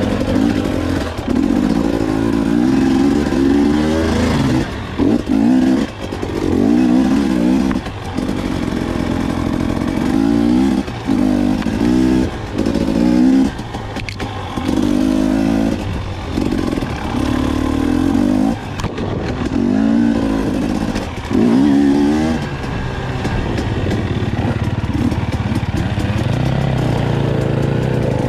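Dirt bike engine heard close up, revving up and dropping back again and again as the throttle is opened and shut through gear changes. Over the last few seconds it settles into steadier, lower running.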